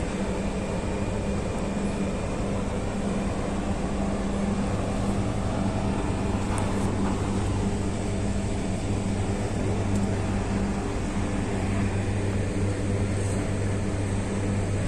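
Diesel tractor engine running steadily, a low even hum whose pitch drops to a deeper note about four seconds in.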